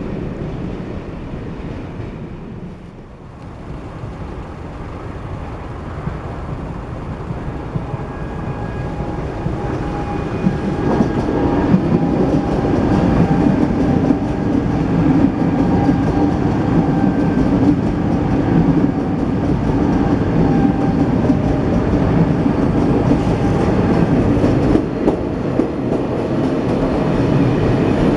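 Train running past on the rails. The rumble dips about three seconds in, then builds until about twelve seconds and stays loud, with steady tones over it.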